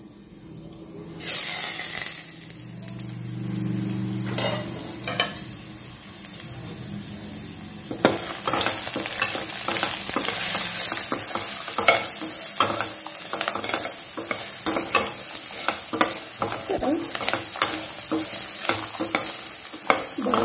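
Green chillies and chana sizzling in hot oil in a steel kadai, with a steady hiss from about a second in. From about eight seconds in, a metal spoon stirs and scrapes them around the pan, adding quick clicks against the steel.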